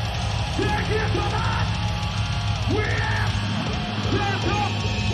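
Heavy metal band playing live, with yelled vocals over dense, loud guitars and drums.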